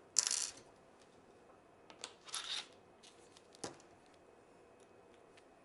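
Hands handling lightsaber hilt parts and Allen wrenches: two short scraping rustles about two seconds apart, then a single sharp knock.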